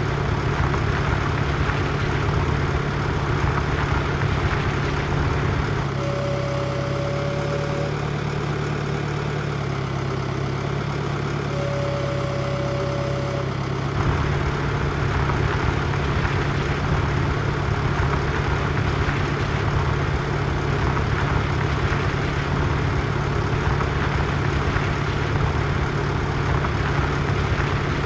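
Tractor engine running steadily under load with a deep hum. For a stretch about a quarter to halfway through, the sound shifts and two held steady tones of about two seconds each sound over it.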